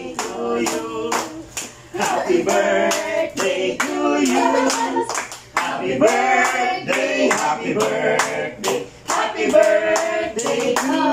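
A group of adults and children singing together while clapping their hands steadily in time.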